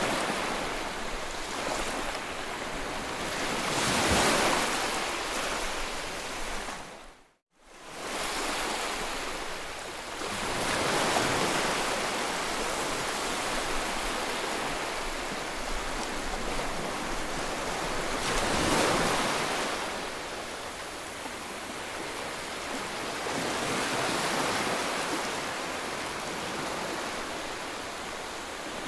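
Small sea waves washing onto a rocky, sandy shore: a steady rush of water that swells and eases every several seconds. The sound drops out completely for a moment about seven seconds in.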